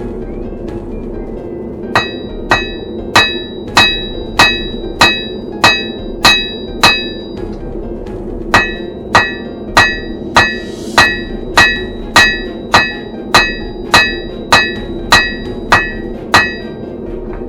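Blacksmith's hand hammer striking steel on an anvil while forging, each blow ringing with a bright metallic tink. The blows come steadily about every 0.6 seconds in two runs, with a short pause near the middle, over a steady low hum.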